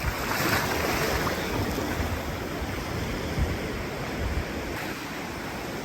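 Sea surf on a beach: a wave breaks and washes in during the first couple of seconds, then the wash eases off, with wind gusting on the microphone.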